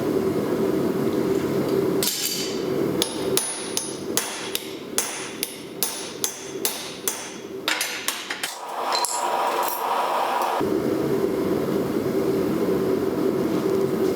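Hand hammer striking a steel punch into a hot steel bar on an anvil: about a dozen sharp, ringing metal-on-metal blows at roughly two a second, over a steady hum. The blows stop about eight seconds in.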